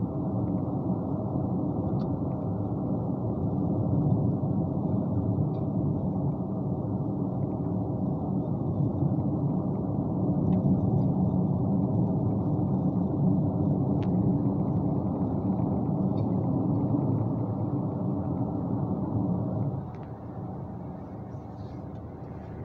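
Engine and road noise heard from inside a moving vehicle: a steady low rumble that drops in level suddenly about twenty seconds in, with a few faint clicks.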